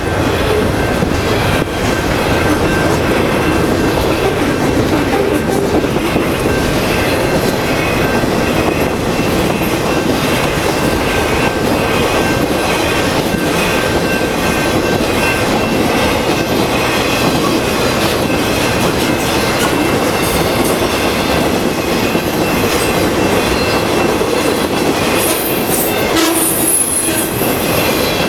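Intermodal freight train's cars rolling past at speed across a grade crossing: a loud, steady rumble and rattle of wheels on rail, with thin steady high tones riding over it for most of the time.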